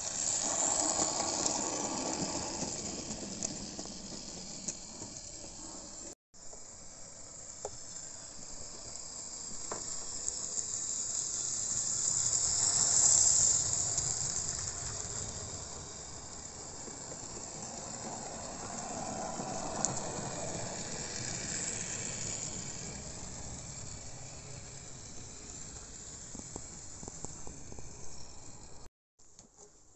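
Model railway train running along the track: a steady whirring hiss of wheels and motor that swells to its loudest about halfway through. The sound cuts out briefly twice.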